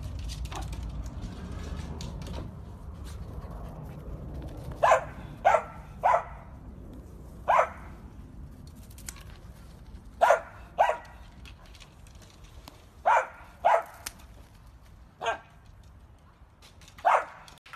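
Dachshund barking: about ten short, sharp barks, mostly in quick pairs, starting about five seconds in.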